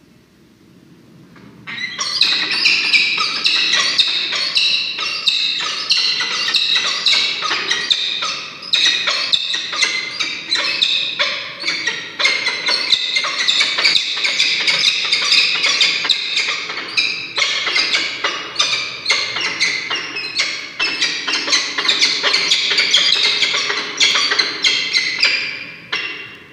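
Peregrine falcon giving loud, harsh calls in rapid, unbroken series, starting about two seconds in and stopping just before the end, with brief dips around eight and twenty seconds.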